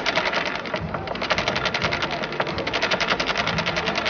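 Dice rattling inside a shaken dice cup: a fast, even run of clicks, about a dozen a second.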